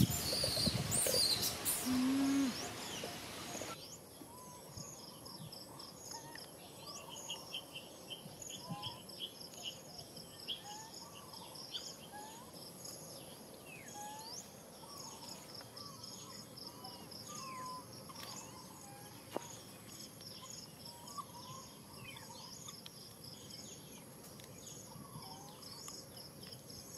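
Outdoor ambience of insects trilling in fast, evenly repeating pulses, with short rising and falling chirps scattered throughout. A louder noisy stretch at the start cuts off abruptly about four seconds in.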